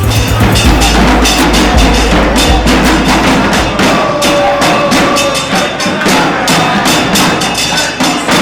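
Loud music with a busy percussion beat of sharp, rapidly repeating strokes.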